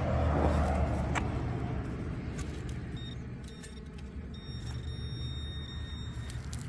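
Steady low rumble, with a sharp knock at the start and another about a second in as a shovel works the field soil of the hole. A faint steady high tone sounds for about two seconds near the end.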